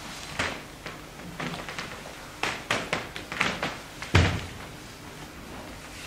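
A run of sharp knocks and thumps from performers moving on a stage, bunched between two and four seconds in, the loudest a heavy thud about four seconds in.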